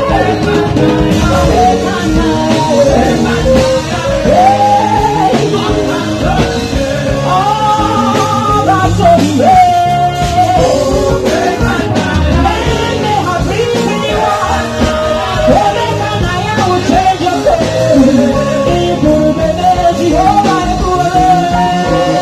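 Live gospel praise music: singing over a full band with drums and bass guitar, loud and continuous.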